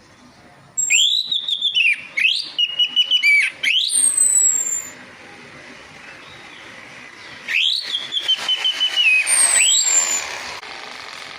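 Orange-headed thrush (anis merah) song played as a lure: two loud phrases of whistled notes, one about a second in and one past the middle. Each phrase sweeps up into a held, wavering tone and drops away, with thin, high falling notes above.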